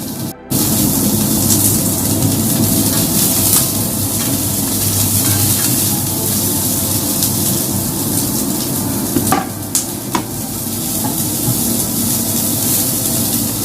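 Shallots frying in hot oil in a pan with a steady sizzle while being stirred, with a few sharp utensil clicks about nine to ten seconds in. The sound cuts out for a moment just after the start.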